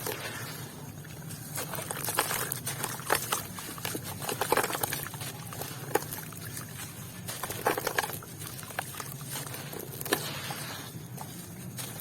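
Wet sand and red dirt crumbling and dropping into water, with irregular crackling, soft splashes and small clicks.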